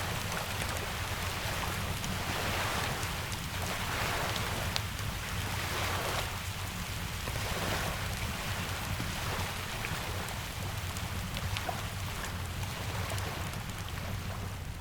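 Steady rain with ocean surf under it, the hiss swelling and easing every couple of seconds over a constant low rumble, with scattered sharp crackles from a wood fire.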